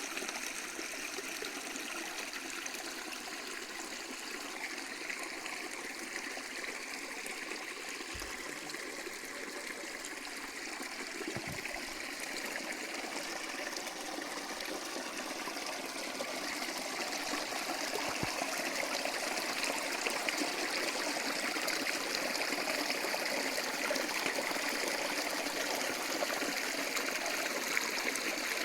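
Running water, a steady trickling rush like a small stream, growing slightly louder a little past halfway.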